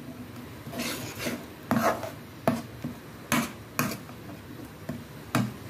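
Slotted steel spoon scraping and stirring thick tomato-onion masala in a kadhai, about eight rough strokes against the pan. The masala is being fried until the oil separates.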